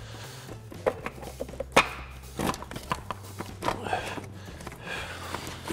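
Plastic upper timing belt cover being pulled back and worked out past the engine and wiring: scattered light clicks, knocks and scraping of plastic.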